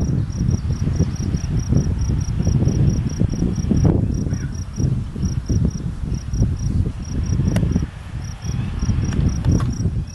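Steady high-pitched insect chirping, about four to five evenly spaced chirps a second, over a loud, uneven low rumbling noise that drops away near the end.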